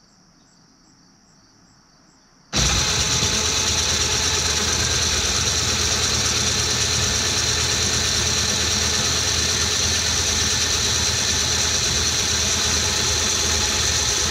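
A 12-volt Superwinch LT2000 winch motor, powered straight from a jump starter, spins an MTD lawn tractor transmission and its axles: a loud, steady whir of motor and gears. It switches on abruptly about two and a half seconds in and runs on at an even level. Before it starts, crickets chirp faintly.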